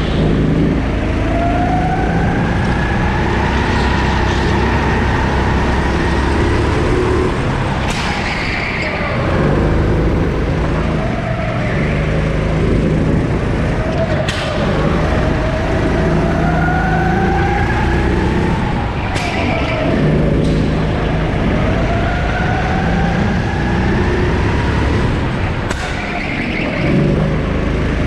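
Sodi 270cc four-stroke kart engine at full throttle, heard onboard. Its pitch climbs in long rising runs, then drops as it slows for corners, several times over. A few short sharp knocks come through now and then.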